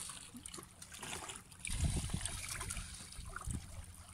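Small waves lapping and trickling among shoreline rocks, a steady fine crackle of moving water, with low rumbles of wind on the microphone about two seconds in and again near the end.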